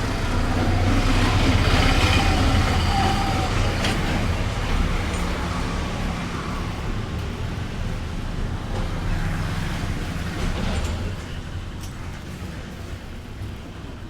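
Road traffic rumble, swelling over the first few seconds and fading toward the end, with a few faint clicks.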